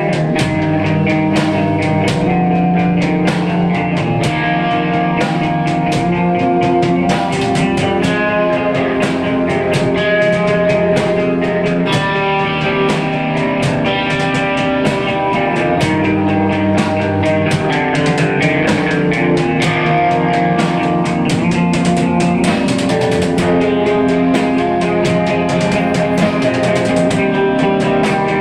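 Loud live hardcore band playing an instrumental passage: distorted electric guitars sustaining ringing chords over a steady, busy drum kit beat.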